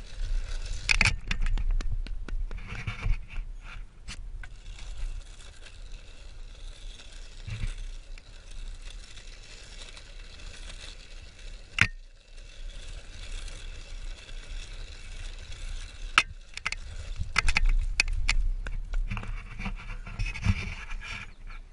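Wheels of a downhill board rolling and scraping over a loose dirt trail, with sharp knocks and clicks as it runs over bumps, under a low rumble of wind on the microphone.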